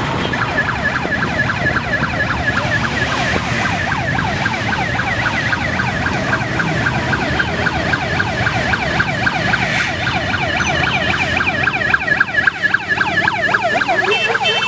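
Police motorcycle escort sirens in a fast yelping wail, several overlapping, over the running engines of approaching motorcycles, louder near the end as the bikes pass close.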